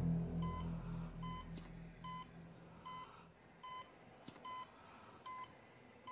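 Hospital patient monitor beeping with the heartbeat, a short high beep about every 0.8 seconds. Low, dark music fades out over the first two seconds.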